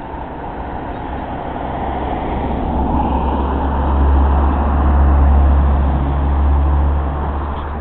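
A road vehicle passing close by, its low engine rumble and tyre noise swelling to a peak about four to six seconds in, then fading.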